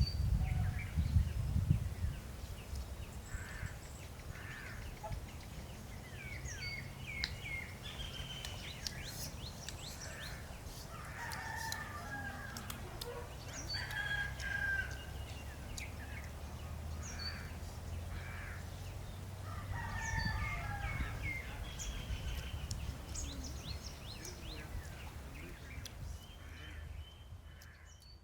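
Birds calling and chirping, short scattered calls over a steady low rumble.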